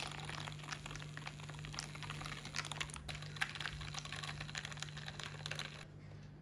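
Handheld milk frother whisking coffee in a glass: a busy crackling fizz of frothing foam and bubbles over a steady low hum, stopping abruptly near the end.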